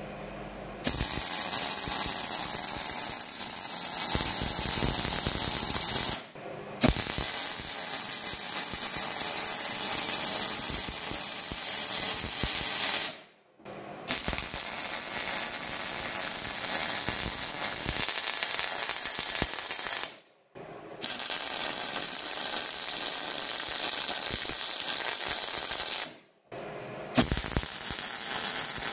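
MIG welding arc welding rebar to a steel plate, starting about a second in. It runs in five steady spells broken by four brief pauses of under a second.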